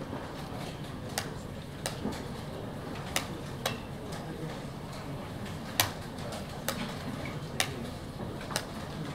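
Wooden chess pieces set down on a wooden board and chess clock buttons pressed in quick turn in blitz play: about nine sharp knocks and clicks, roughly one a second, over a steady low room hum.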